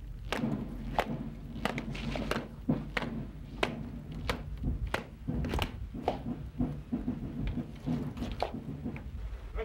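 Soldiers' boots striking stone paving in a stamping parade march: sharp footfalls about one to two a second over a steady low rumble.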